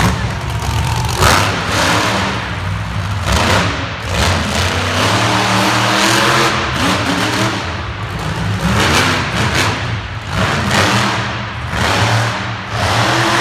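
Monster truck engine revving hard in repeated surges, rising and falling with the throttle as the truck wheelies and drives around the dirt floor.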